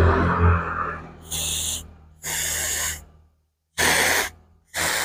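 Pesticide mist sprayer giving four short bursts of spray about a second apart, each lasting about half a second. A low hum fades out during the first second.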